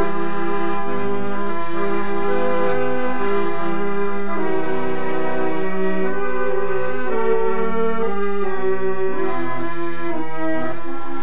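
Two accordions playing an instrumental tune together: a melody of held notes over a bass line that moves in steady steps.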